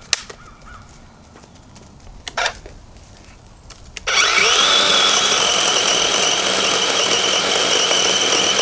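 Cordless battery-powered chainsaw starting about four seconds in with a short rising whine, then running steadily at full speed as it cuts into a small tree trunk. Before that there are only a couple of light clicks.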